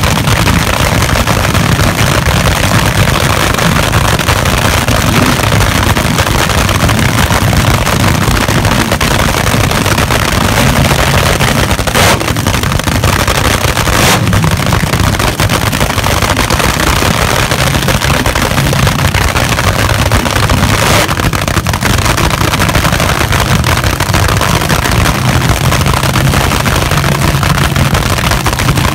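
Drag-racing engines running in a loud, steady, overloaded rumble. Three short, sharp clicks come through in the middle stretch.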